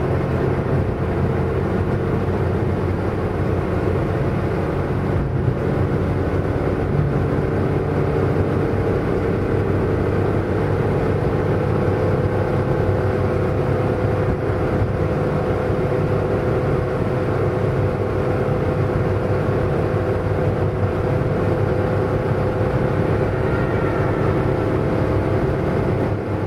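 Motor scooter engine running steadily on the move, a low hum with a higher drone at an even pitch, over road and wind noise.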